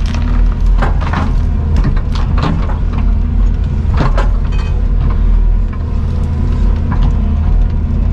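An engine running steadily, with scattered knocks and clanks over it.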